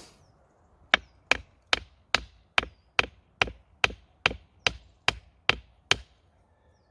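A tool striking wood in a quick, steady rhythm: thirteen sharp, evenly spaced blows, about two and a half a second, that stop about six seconds in.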